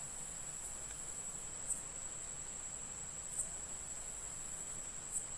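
Faint, steady high-pitched trill that grows slightly louder in a brief pulse about every second and a half to two seconds, over low background hiss.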